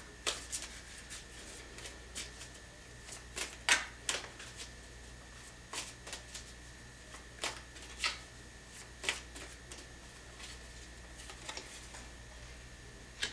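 A tarot deck being shuffled and handled by hand to draw a card: irregular soft snaps and flicks of the cards, some in quick clusters, with a card laid down near the end.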